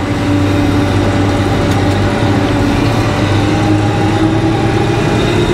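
Tractor's diesel engine running steadily with an even, constant drone, heard from inside the cab.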